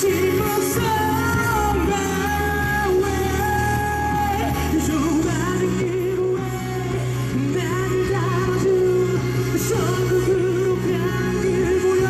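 A male singer performing a pop song live over a band backing track, with held bass notes under a sustained, wavering vocal melody.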